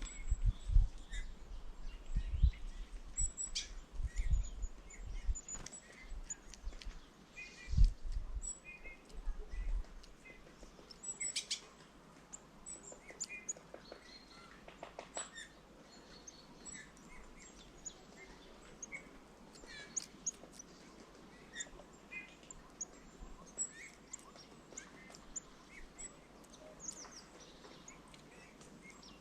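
Small songbirds chirping and calling in short high notes, scattered through the whole stretch. In the first ten seconds there are also loud low thumps and rumbles.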